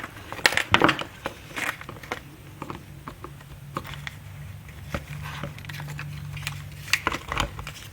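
Small sharp clicks and scrapes of fingers and nails working the brittle plastic locking tabs of an old turn signal switch connector, trying to free the panel. A low steady hum sounds through the middle.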